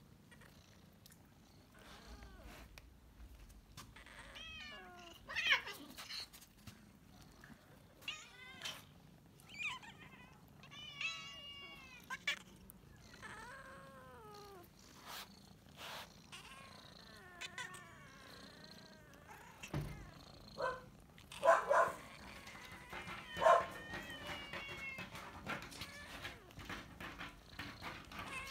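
House cats meowing over and over, begging to be fed, with the loudest calls about three quarters of the way through. A dull thump comes just before them.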